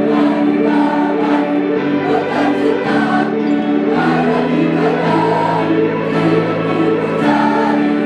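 School choir singing in held, sustained notes, the chord shifting every couple of seconds.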